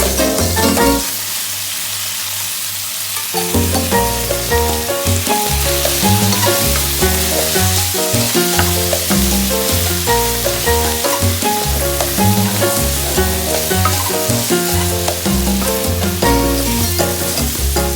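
Food sizzling as it fries in a pan, a steady hiss, under background music with a bass line. The music drops out for a couple of seconds about a second in, leaving the sizzle on its own.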